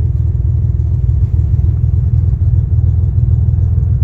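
Cummins diesel pickup engine idling with a steady, low, rapidly pulsing rumble.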